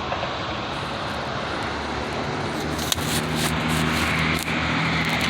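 A motor vehicle engine running steadily under a constant rushing noise. Its low hum grows stronger about three seconds in, just after a small click.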